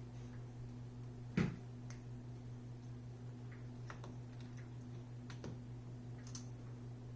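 Scattered small clicks and taps of a screwdriver and small screws being fitted to a laptop screen's mounting, one sharper click about a second and a half in, over a steady low hum.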